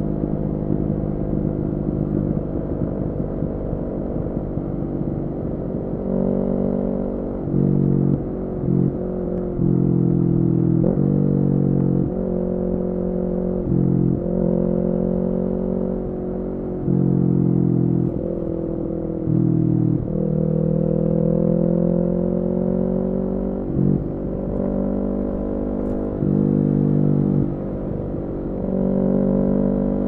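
Kawasaki Ninja 400's parallel-twin engine through an Akrapovic full exhaust system, riding along with the revs climbing and dropping back again and again, the pitch jumping every few seconds.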